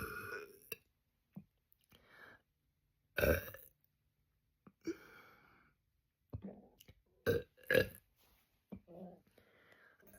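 A person burping repeatedly: a run of separate burps, some short and some drawn out, with pauses between. The loudest comes about three seconds in, and two strong ones follow close together near the eight-second mark.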